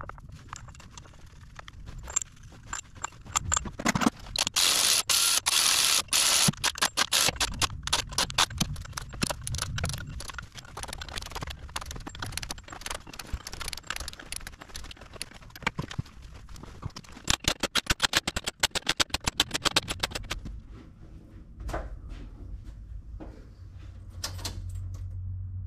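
Tools at work on a flex plate's bolts: irregular metallic clicks, clinks and knocks, with a loud, dense rushing burst about five seconds in and a fast, even run of clicks about two thirds of the way through.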